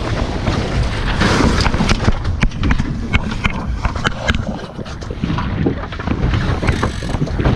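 Wind buffeting a GoPro's microphone aboard a Lightning sailboat under way, a steady low rumble, with a flurry of sharp clicks and knocks through the middle.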